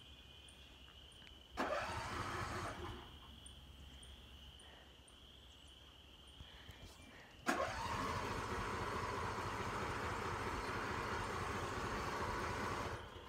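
Cold John Deere riding lawn mower engine being cranked by its starter: a short crank about a second and a half in, then a longer crank of about five seconds that begins with a click and cuts off suddenly, without the engine catching and running.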